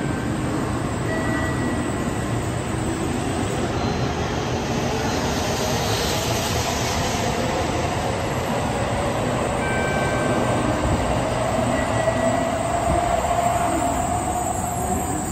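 Shinkansen N700A bullet train running alongside the platform as it pulls in. Its wheels and running gear give a steady rumble, and a whine rises slightly in pitch through the second half.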